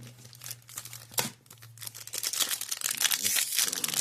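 Foil booster pack wrapper crinkling and tearing as it is handled and opened, a few light crackles at first, then dense crinkling from about two seconds in.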